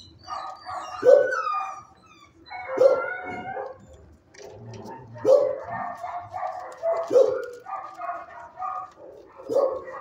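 Dogs barking in a shelter kennel block: about five loud barks, one every two seconds or so, over a steady din of other dogs barking.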